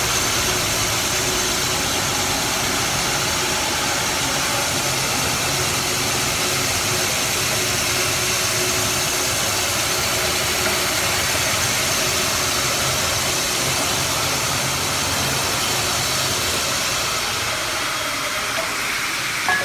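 Polishing machine running steadily, a continuous even whirring hiss over a low hum, with one short knock near the end.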